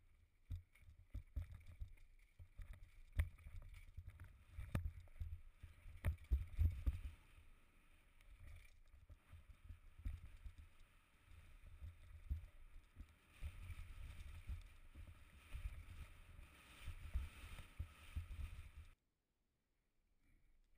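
Mountain bike ridden fast down a rough forest trail, heard from a camera on the bike or rider: wind rumble on the microphone with frequent sharp knocks and rattles as the bike hits bumps and roots. The sound cuts off abruptly a couple of seconds before the end.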